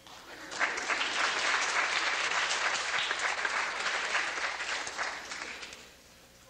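A congregation applauding: many people clapping, starting about half a second in and dying away near the end.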